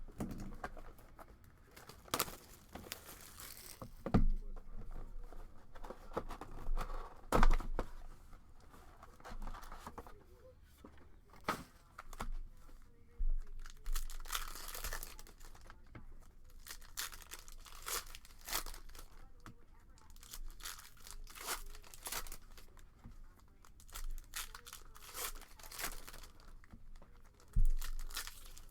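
Wrapping torn and crinkled by hand as a sealed box of trading cards and its packs are opened: irregular crackling and tearing, with a few sharper knocks from the box being handled.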